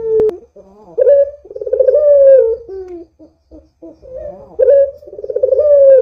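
Puter dove (Barbary dove) cooing: two long, loud coo phrases, each sliding down in pitch at the end, with short separate notes between them. A single sharp click comes just after the start.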